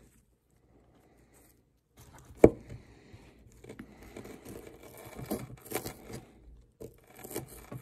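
A small plastic digging tool scraping and chipping at the hard crust of a dig-kit ball. It starts about two seconds in with irregular scratching and small clicks, and a sharp crack soon after the start is the loudest sound.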